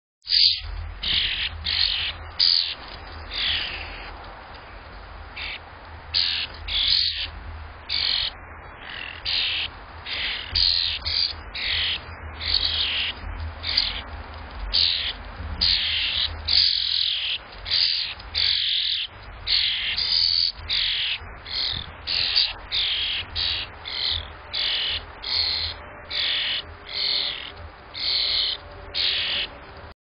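European starlings, mostly juveniles, giving harsh, raspy calls over and over, a little faster than once a second.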